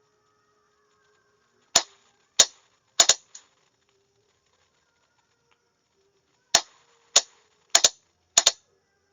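Sharp clicks of a Morse sending key, about eleven in two irregular bunches with a pause of about three seconds between them, some coming in quick pairs, as a code group is sent.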